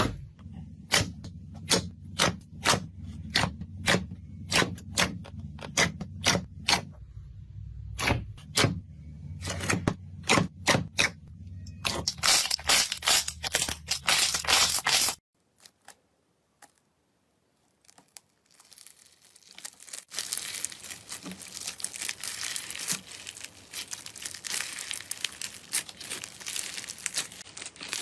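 Slime being handled for ASMR: sharp popping clicks, about two or three a second, then a dense crackling for a few seconds. After a short gap of near silence comes a steady crinkly crunching.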